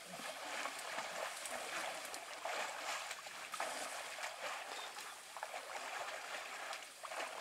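Water splashing and sloshing as an African elephant wades in a shallow muddy waterhole and drinks with its trunk, with many small irregular splashes.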